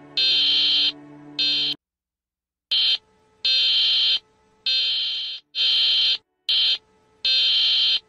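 Harsh, high-pitched electronic alarm buzzer sounding in repeated bursts of uneven length, some short and some long. A low sustained tone runs under the first buzzes and stops just under two seconds in, followed by a brief silence.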